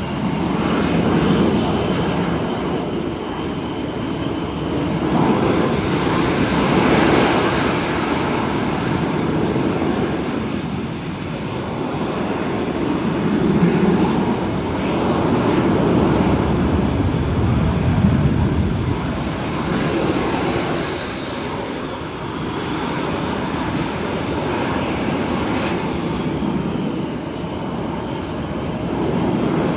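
Blue Angels F/A-18 Super Hornet jets taxiing past, their twin turbofan engines running with a steady rush and a thin high whine. The noise swells and fades several times as the jets roll by one after another.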